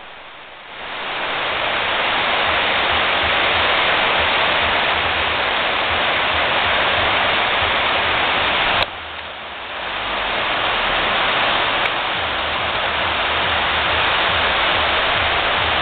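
Heavy rain pouring steadily on garden foliage and ground: a dense, even hiss. It swells up over the first second. About nine seconds in a click cuts in, and it dips and builds back to the same steady downpour over about a second.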